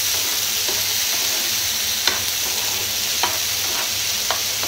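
Shallots, tomatoes, green chillies and garlic sizzling in hot oil in a nonstick frying pan as they are stirred with a metal spoon to soften the tomatoes, with a few sharp clicks of the spoon against the pan.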